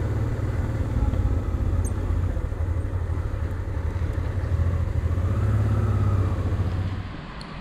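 Honda Transalp's V-twin engine running steadily while riding, with wind and road noise; the sound drops away near the end.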